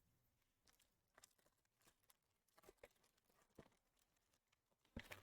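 Faint rustles and soft clicks of trading cards being flipped and handled, with a sharper click near the end.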